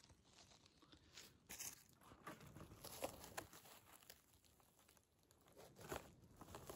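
Faint rustling and crunching of dry conifer needles and forest litter as a hand works around the base of a porcino mushroom to pick it. A few sharper crackles stand out, the loudest about three seconds in and again near the end.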